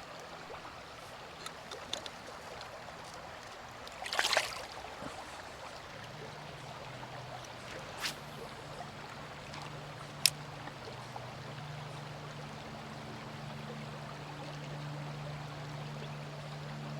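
Creek water running over a riffle, a steady rushing wash. A short splash comes about four seconds in and a couple of sharp clicks follow. From about six seconds in, a low steady hum that shifts in pitch sits under the water sound.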